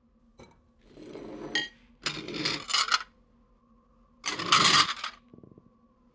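Hand-made foley noises: a light click, then four rough, noisy scrapes or rubs, each about a second long, over a faint steady hum.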